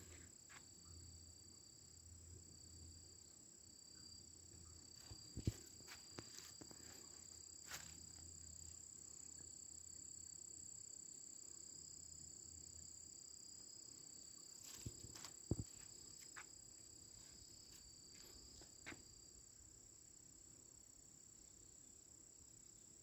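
Near silence: a faint, steady, high-pitched insect song, with a few soft scuffs and clicks.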